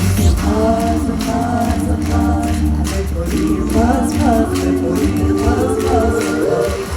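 Pop music performed live: several singers in close harmony over an amplified backing track with a heavy bass and a steady, tambourine-like beat.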